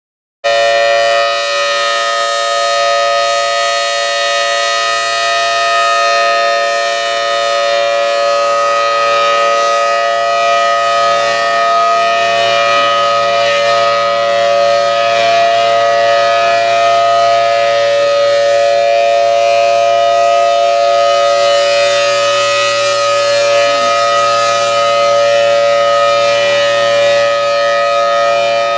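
Thunderbolt 1000T outdoor warning siren sounding the steady Alert signal for a monthly test: a loud, unchanging chord of tones that comes in abruptly about half a second in, already at full pitch.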